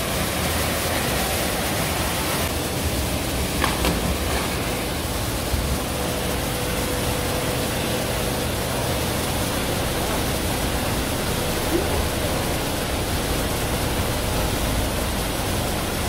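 Steady rush of water falling in a cascade on a mountain river, an even hiss with no change in level.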